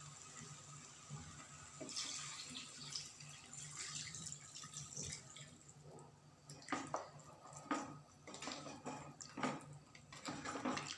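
Water being poured into a pot of frying curry masala, splashing and trickling for a few seconds, followed by a run of short splashes and knocks.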